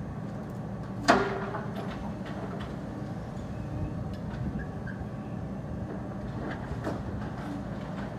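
Demolition excavator's diesel engine running steadily while its grab works. About a second in there is one loud, sharp bang with a short ring after it, followed by a few lighter knocks, the strongest near the end.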